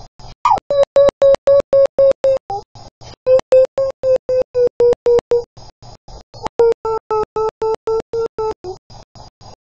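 Dog howling: three long held notes of about two seconds each, the first sliding down into its note at the start, each dipping slightly in pitch as it ends. The sound is chopped into a rapid, even stutter.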